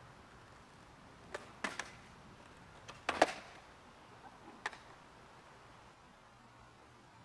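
Freestyle skateboard knocking and clacking on asphalt as tricks are done: several sharp knocks of tail and wheels on the pavement, the loudest about three seconds in.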